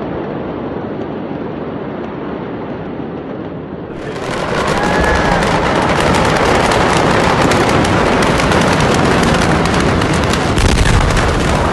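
Steady rushing rumble of a large fire. About four seconds in, a dense, rapid crackling of countless pops takes over, like fireworks cooking off in the blaze.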